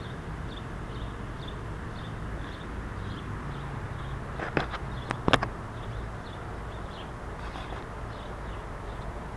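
Outdoor background noise with a faint high chirp repeating about twice a second, and a few sharp clicks near the middle.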